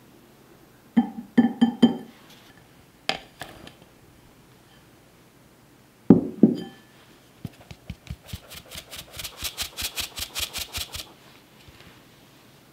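A wire whisk clinks against a ceramic bowl a few times. A flour sieve then knocks twice against a glass mixing bowl and is tapped rapidly, about six taps a second for some three seconds, sifting flour onto the batter.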